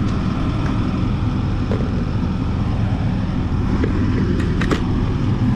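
Skid steer loader's engine running steadily in a low drone, with a couple of faint clicks.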